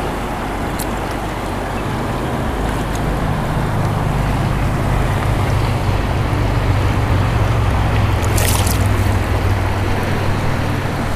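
Rushing river water close to the microphone, loud and steady, with a low rumble underneath. A short splash comes about eight and a half seconds in.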